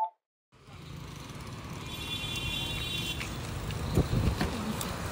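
Street background noise fades in after a short gap of silence, with a brief high tone about two seconds in. About four seconds in comes a sharp click as a car's exterior door handle is pulled and the door latch releases.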